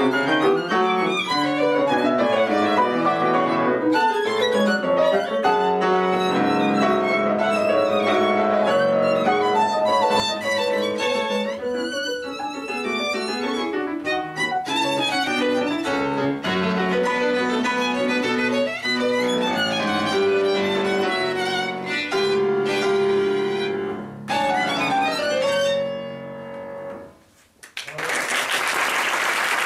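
Violin and piano playing a fast scherzo. The music stops a couple of seconds before the end, and applause breaks out after a brief pause.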